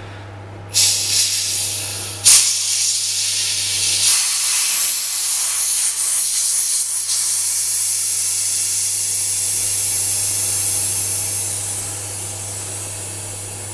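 High-pressure air hissing out through the bleed valve at the base of an HD35K PCP hand pump as it is vented after pumping to 300 bar. The hiss starts suddenly about a second in, jumps again about a second later, then runs steadily and eases a little near the end.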